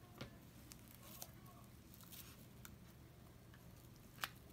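Near silence with a few faint ticks and one sharper click near the end, from thick glue being poured slowly out of a plastic bottle into a small glass flask.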